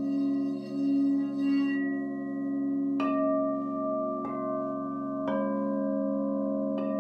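Frosted crystal singing bowls ringing in layered, sustained tones. A bowl is sung by a mallet circling its rim, its tone pulsing, until the rubbing stops about two seconds in. Then four separate strikes in the second half each add a new ringing note over the hum.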